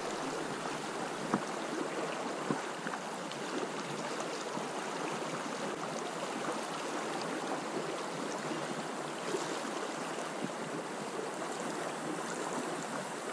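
Steady rush of river current flowing around a drifting boat, with a few faint knocks.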